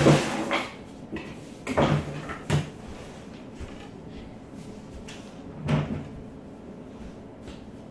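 Rummaging while searching for a lost Lego piece: about four short knocks and clatters of things being moved, opened and shut, the loudest right at the start.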